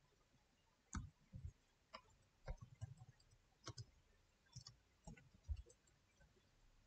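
Faint computer keyboard keystrokes: about ten light, irregularly spaced clicks of typing.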